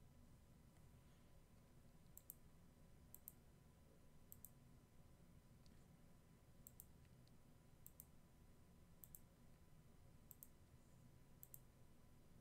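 Near silence with faint computer mouse clicks, a quick double tick roughly once a second, over a low steady hum.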